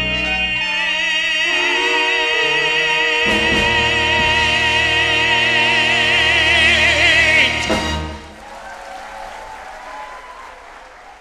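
A male singer holds a long closing note with a wide vibrato over a full pit orchestra, which ends the show tune on a loud final chord about seven and a half seconds in. Audience applause follows and fades away.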